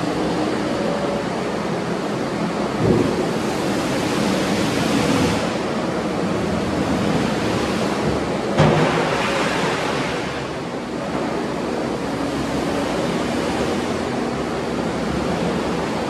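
Kubota SVL95-2S compact track loader's diesel engine running as the machine drives and turns on its rubber tracks, with a steady rushing noise. There are two sharp knocks, one about three seconds in and a louder one a little past the middle.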